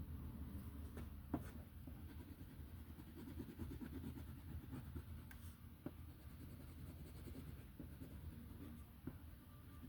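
Faint, fast scratching of colored pencil on paper while grass is shaded in light green, with a few light taps.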